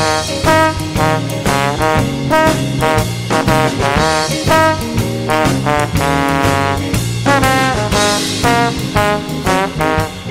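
Trombone playing a blues solo over a backing track with bass and drums, phrased in short notes, some bent or slid up in pitch.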